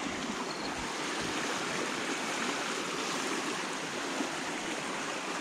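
Steady rushing of a muddy creek flowing fast.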